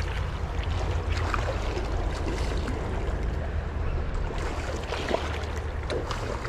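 Shallow stream running steadily over a stony riffle, with a low rumble underneath.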